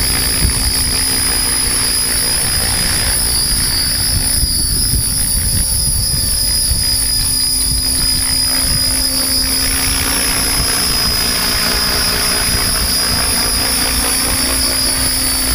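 HobbyKing 600 electric RC helicopter in flight on a 6-cell pack: a steady rotor drone overlaid with a high, constant motor and gear whine.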